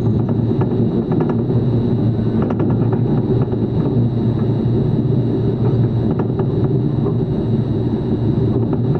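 Steady low rumble of running machinery, with a faint high whine and scattered light crackles.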